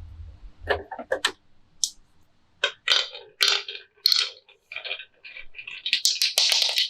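Marbles clicking and knocking along a wooden marble run: scattered sharp clacks that thicken into a dense clatter near the end, with a low rolling rumble that fades out about a second in.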